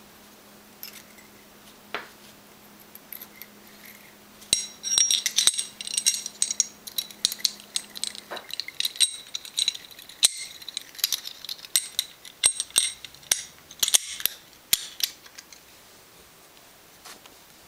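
Steel parts of a Taurus Millennium PT111 9mm pistol clicking and clinking against each other as the barrel, recoil spring and guide rod are fitted back into the slide. The sharp, irregular clicks with a light metallic ring start about four seconds in and come thick and fast until about fifteen seconds in.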